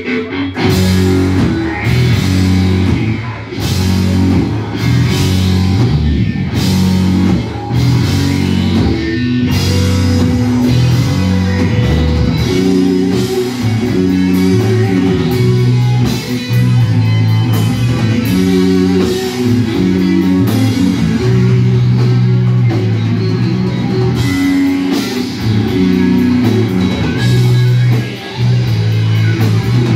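Rock band playing live: two electric guitars, electric bass and drum kit, loud and continuous, with cymbal crashes about once a second through the first ten seconds.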